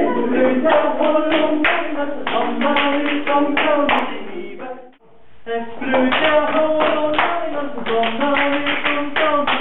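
Recorded music with a steady beat of sharp handclaps; it fades out about five seconds in, breaks off for a moment, then starts up again.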